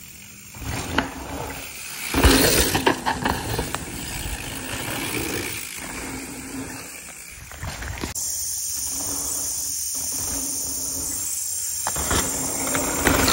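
Mountain bike ridden past on a dry dirt trail: tyres crunching and skidding on the dirt, loudest about two seconds in and again near the end.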